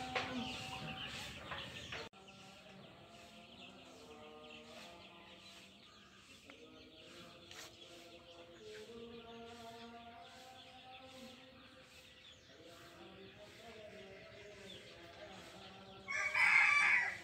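Chickens clucking, many short calls overlapping, louder for the first couple of seconds, with one loud call about a second long near the end.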